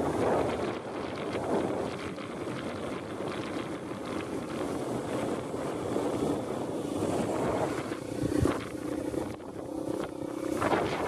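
Dirt bike engine running under way, with wind buffeting the microphone; the engine's steady tone comes through more clearly near the end. A single thump about eight seconds in.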